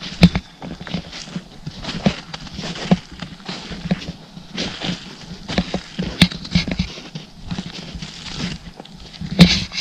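Footsteps crunching through snow at a steady walking pace, with two sharper, louder knocks, one just after the start and one shortly before the end.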